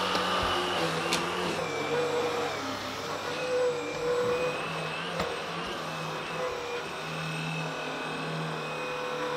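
Vacuum cleaner running on carpet: a steady motor hum and whine whose pitch shifts slightly from moment to moment.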